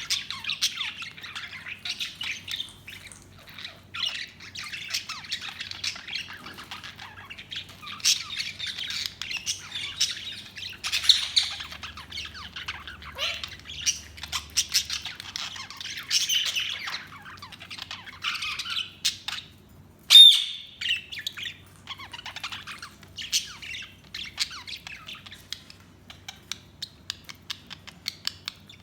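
Budgies (budgerigars) chattering: a continuous run of short chirps, warbles and squawks, with one loud squawk about twenty seconds in.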